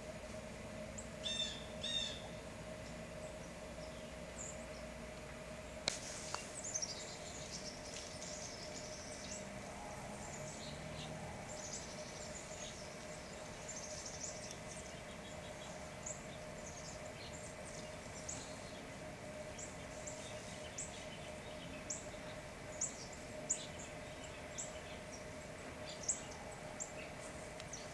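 Small songbirds calling with scattered short, high chips and twitters: a brief call about a second in, then many quick chips after about six seconds. A faint steady hum runs underneath.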